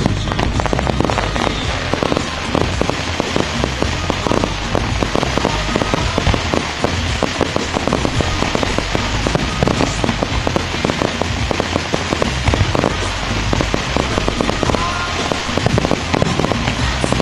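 Aerial fireworks bursting in a rapid barrage: many overlapping bangs and pops in quick succession with no let-up.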